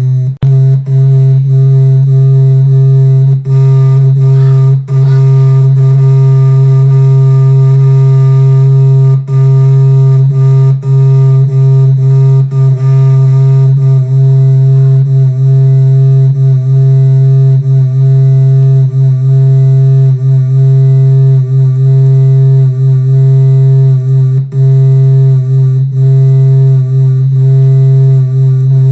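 Computer's speakers putting out a loud, steady low drone with fainter higher overtones, broken now and then by brief dropouts. It is a glitch that started while the sound hardware test was running in the control panel's audio settings.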